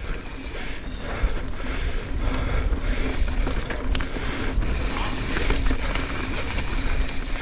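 Mountain bike ridden fast down a dirt flow trail: steady wind rush on the camera mic over tyre noise on dirt, with the bike rattling and knocking sharply over bumps.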